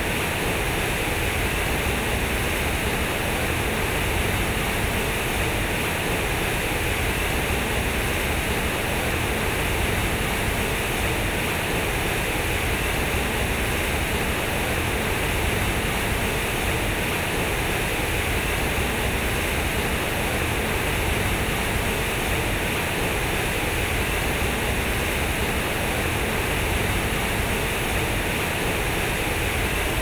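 Concrete fountain's heavy streams of water pouring from square concrete outlets and splashing into a pool, a steady unbroken rush.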